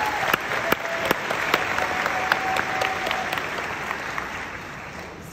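Audience applauding in a large hall, with a few sharp claps close by standing out. The applause fades away near the end.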